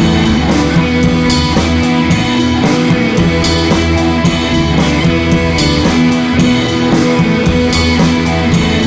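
Rock music with guitar and drums, a steady beat.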